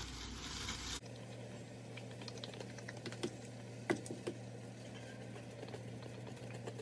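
Scattered light clicks and taps of kitchen handling over a steady low hum.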